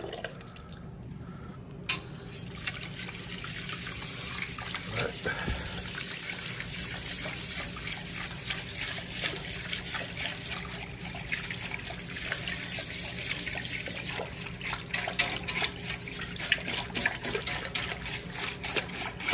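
Ground-beef bolognese base in a pot, wet with freshly added milk and tomato paste, crackling and bubbling as it heats. The crackle starts thin, with a single click about two seconds in, and grows steadily denser.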